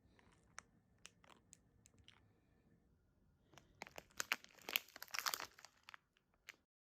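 A chihuahua tearing and chewing something crinkly: a few scattered faint crackles, then a dense burst of crinkling and tearing for about two seconds that stops abruptly near the end.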